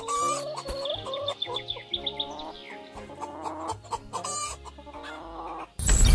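Chickens clucking over light background music. Near the end a loud rumbling noise cuts in suddenly.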